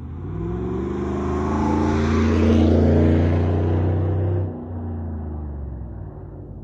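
A GMC Sierra 1500's 5.3-litre V8 accelerates past through a Black Widow Neighbor Hater muffler, with nothing after the muffler. The engine note climbs in pitch as the truck approaches and is loudest as it passes, two to four seconds in. About four and a half seconds in it drops suddenly, then fades as the truck drives away.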